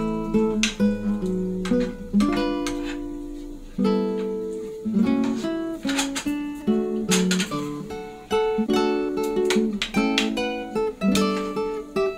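Background music: an acoustic guitar playing chords, each strum ringing out.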